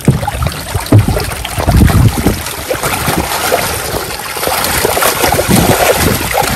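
A mass of fish trapped in a net thrashing in shallow water, a dense continuous splashing with a few heavier slaps in the first two seconds.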